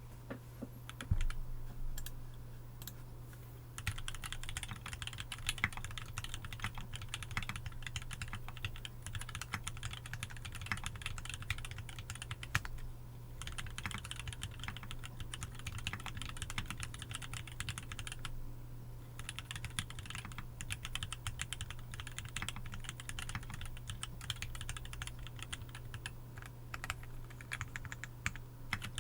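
Typing on a MonstarGear Sangeo 60 mechanical keyboard fitted with Tealios V2 linear switches. A few single keystrokes at first, then fast continuous typing with two brief pauses.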